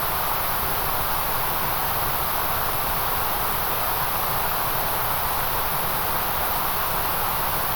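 Steady white noise: an even, unchanging hiss with no breaks or events.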